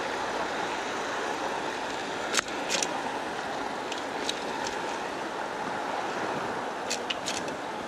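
Steady outdoor street noise heard from a moving bicycle, with a handful of sharp clicks and knocks over it, the loudest about two and a half seconds in.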